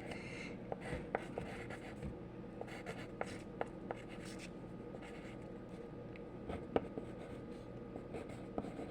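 Light handling noise, scratchy rubbing with scattered small clicks and taps.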